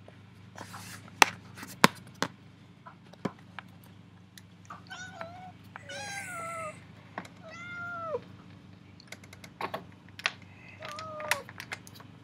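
Domestic cat meowing at a window, asking to be let out: about four drawn-out meows that rise and fall in pitch, the first coming about five seconds in. Sharp clicks and taps sound between them.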